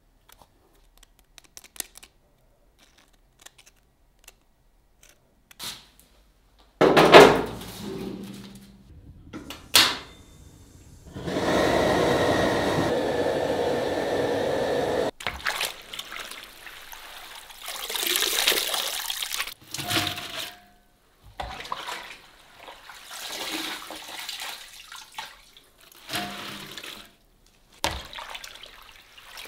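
Water sounds from soaking potato slices. First a few faint clicks, then a sudden loud splash about seven seconds in and a steady rush of water for about four seconds. After that comes uneven sloshing and splashing as raw potato slices are stirred in a tub of water with a wire skimmer basket.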